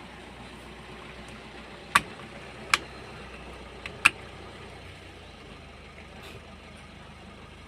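Three sharp clicks within about two seconds, as a new clock spring is fitted onto the steering column, over a steady low hum.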